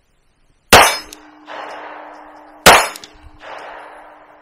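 Two 9mm pistol shots from a PSA Dagger, about two seconds apart, each followed by a rolling echo. A steady metallic ring from a struck steel target hangs on between the shots.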